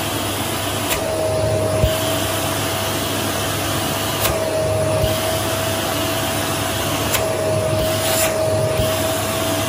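Household vacuum cleaner running steadily with a constant motor whine, its nozzle drawing on the skin around the knee as a suction massage. Several times the hiss thins for about a second, bounded by short clicks.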